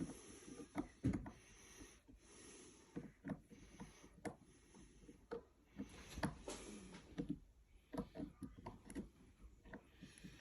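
Faint, irregular small clicks and scrapes of a Dangerfield 2-in-1 pick being worked into the keyway of an Ultion cylinder lock.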